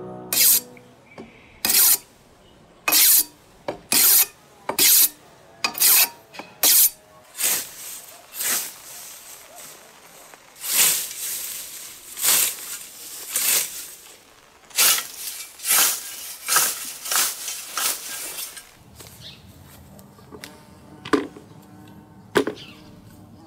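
A run of rasping, scraping strokes, like hand-tool work on wood: about one a second at first, coming faster and less evenly in the middle, then thinning to a few strokes near the end, when a low steady hum comes in.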